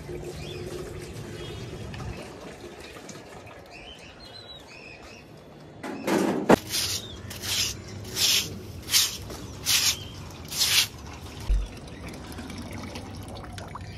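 Water tray set down on concrete with a thud, then scrubbed clean with about six quick, evenly spaced scraping strokes, roughly one every three-quarters of a second. Faint bird chirps come a little before the thud.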